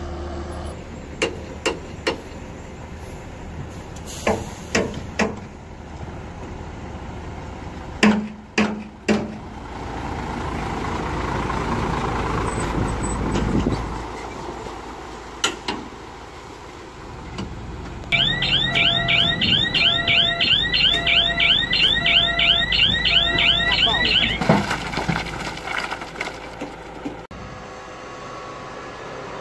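Heavy dump truck's diesel engine running, swelling as it draws near, with scattered knocks and clatter. For about six seconds in the second half an electronic alarm warbles, chirping about three times a second over a steady on-off beep, then cuts off.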